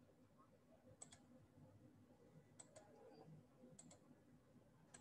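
Near silence with a few faint computer mouse clicks, once and then in two quick pairs.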